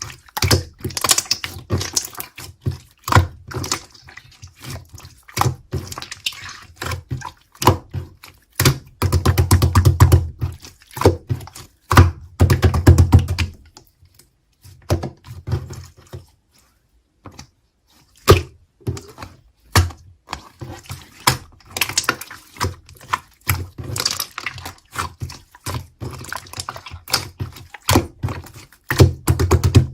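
Slime being squished and pressed by hand close to the microphone: rapid wet clicks, pops and squelches, thinning out briefly around the middle.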